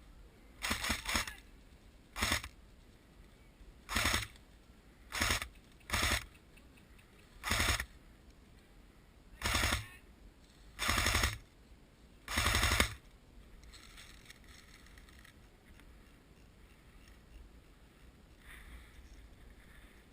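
Airsoft electric guns firing short full-auto bursts, about nine of them spaced a second or two apart, stopping about thirteen seconds in.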